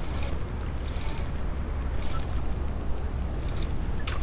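Fishing reel clicking in quick, irregular ticks while a hooked smallmouth bass is being fought, over a steady low rumble.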